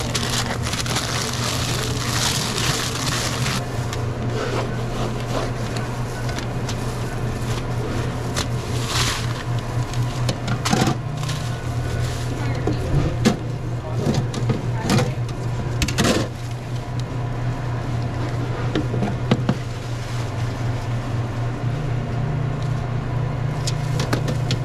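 Sandwich making at a fast-food counter: a steady low machine hum throughout, with scattered knocks and clatter and a rustle about one to four seconds in.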